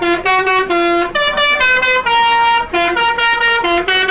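A bus's basuri-type telolet horn playing a quick melody: loud, bright horn notes, about three a second, stepping up and down in pitch.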